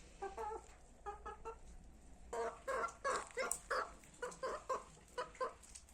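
Domestic hen clucking: a string of short clucks, a few soft ones at first, then louder and quicker, about two or three a second, from a little past two seconds in.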